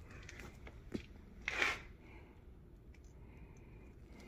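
Faint handling noise over low room hum: a sharp click about a second in, then a short hissy rustle half a second later.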